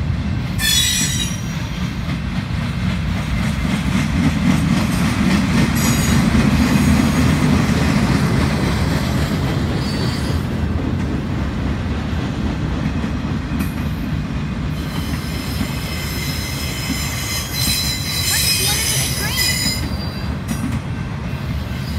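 BNSF freight train of flatcars rolling past with a steady low rumble of wheels on rail. High-pitched wheel squeal comes and goes over it and is strongest near the end.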